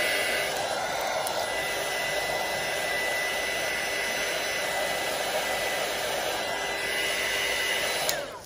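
Embossing heat gun blowing steadily, a rushing hiss with a thin high whine from its fan. It cuts off with a click near the end.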